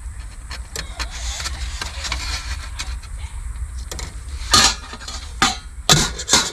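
Several sharp knocks and handling noises, the loudest near the end, over a steady low rumble.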